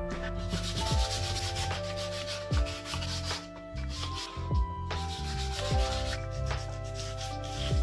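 Sandpaper rubbed by hand against the thin wooden sticks of a small lamp frame, a steady scratchy sanding hiss that breaks off briefly a little after the midpoint. Background music with sustained notes and a soft low beat plays over it.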